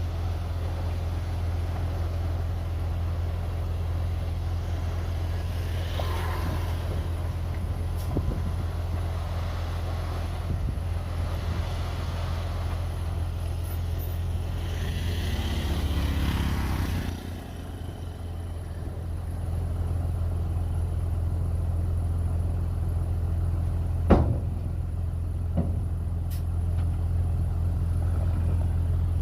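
Heavy diesel engine of earthmoving machinery running steadily with a deep drone. About halfway through it rises briefly, then drops off suddenly. A single sharp knock comes about three quarters of the way in.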